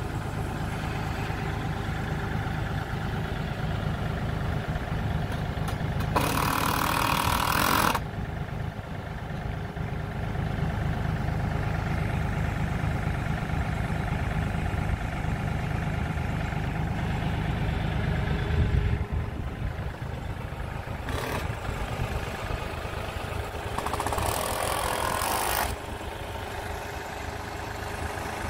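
Compact tractor's engine idling steadily with a low rumble. Two louder hissy bursts of about two seconds each break in, about a quarter of the way through and again near the end.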